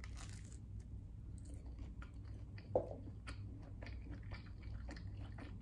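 A bite into crunchy toast topped with tuna salad and avocado, followed by close chewing with small crunches of the toast. There is one short, louder mouth sound a little before three seconds in.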